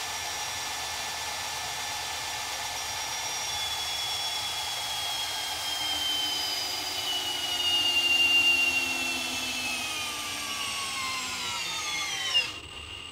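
Milwaukee M18 Fuel 2804 hammer drill in low gear, its motor and gearbox whining as it spins against a disc-brake dyno. The whine sinks steadily in pitch as the brake loads the drill down, then drops sharply and cuts off about twelve and a half seconds in.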